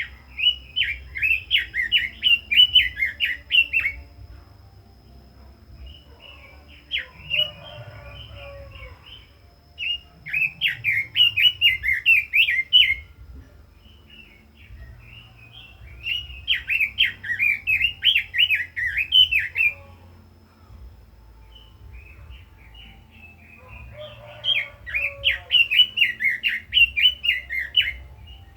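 Red-billed leiothrix singing: rapid warbling phrases of about two to four seconds each, five of them with short pauses between.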